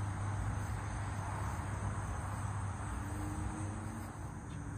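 Steady outdoor garden background: a constant low hum and rushing noise, with a thin, continuous high-pitched buzz of insects.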